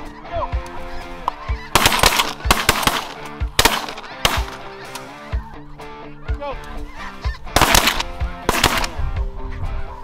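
Snow geese honking over background music, broken by loud shotgun blasts, several in quick succession about two seconds in and again near eight seconds in.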